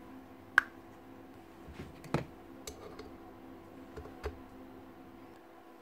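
Steel gears and a bearing being handled and fitted into the gearbox housing of a Hilti TE905 demolition hammer: a few scattered sharp metal clicks and knocks, the loudest about half a second in, over a faint steady hum.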